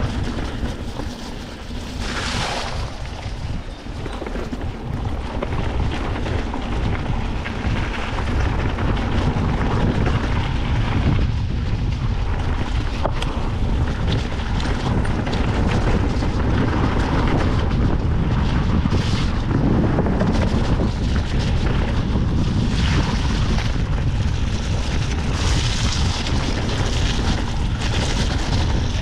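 Wind buffeting the microphone of a rider's action camera while moving, a loud, steady rush heaviest in the low end, with a few brief stronger gusts.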